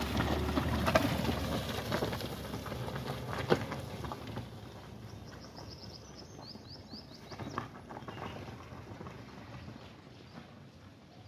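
Small hatchback car driving away over a muddy, stony dirt road, its engine and tyre noise fading steadily as it goes. A few sharp knocks come along the way.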